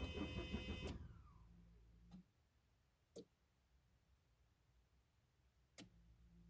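Audi 80's starter motor cranking for under a second on a remote-start attempt by the Tomahawk 9010 alarm, then spinning down without the engine catching. This is the alarm's default 800 ms crank time, which the owner finds too short. A few short clicks and a faint low hum follow.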